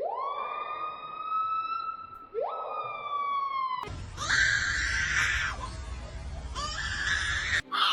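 Bird calls: a long wail that rises in pitch and then holds, with a second rising wail starting about two and a half seconds in. From about four seconds in come harsh screeching calls.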